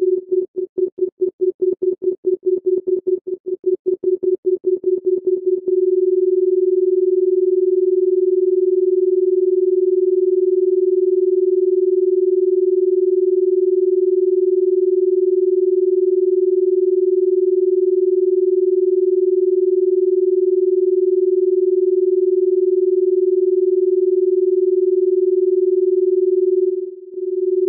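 A single electronic tone at one steady pitch, stuttering rapidly on and off for about the first six seconds and then held unbroken, with a brief dip near the end.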